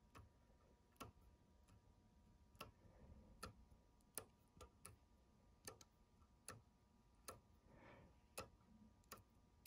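Near silence broken by faint, sharp clicks and light taps at irregular intervals, about one or two a second.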